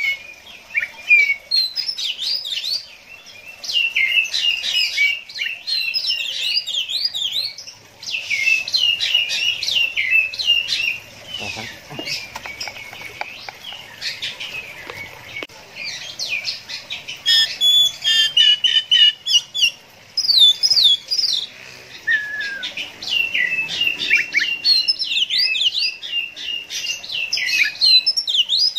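Oriental magpie-robin singing a long, varied song of rapid sweeping notes, in stretches of several seconds with short pauses between them.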